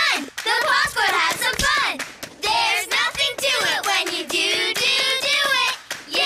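Cartoon children's voices singing together, with hand claps.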